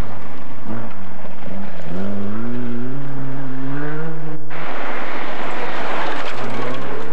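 Rally car engines revving hard on a gravel forest stage. The pitch climbs, dips at a gear change about two seconds in, then climbs again before cutting off abruptly. After a stretch of rushing noise, another car's engine comes in near the end, its pitch rising.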